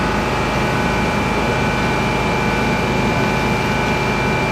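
Fire truck's engine and water pump running steadily to feed its roof-mounted water cannon, a dense rushing noise with a steady high whine over it.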